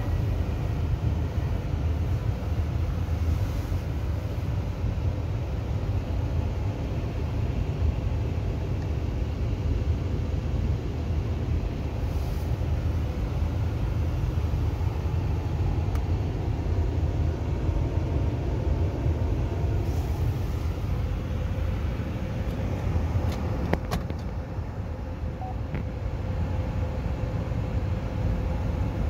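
Steady low rumble of a 2011 GMC Acadia's V6 idling, heard from inside the cabin, with a faint steady hum over it. A couple of sharp clicks come a few seconds before the end.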